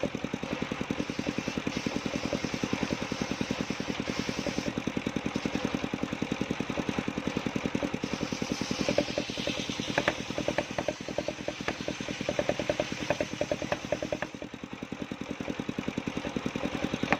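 Engine of a circular saw machine running steadily, with a rapid, even pulse. In the middle stretch there is a run of light clicks and clatter over the engine.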